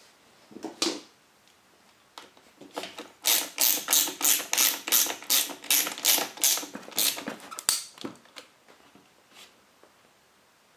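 A run of sharp mechanical clicking strokes, about three a second for some five seconds, as the hedge trimmer's housing screws are driven home with a ratchet. A couple of single clicks come first.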